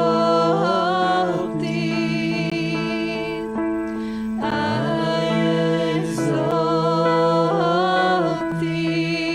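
Small mixed group of men and women singing a slow worship song in harmony, over held chords on an electronic keyboard. The voices pause between phrases about four seconds in, while the keyboard chords sustain.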